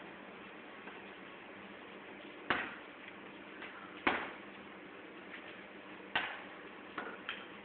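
Sharp knocks of construction work, five in all at uneven gaps of one to two seconds, each with a short ring, over a steady background hiss.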